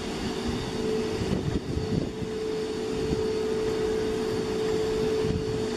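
Jet engines of an Airbus A320-family airliner running with a steady whine over a low rumble, slowly growing louder.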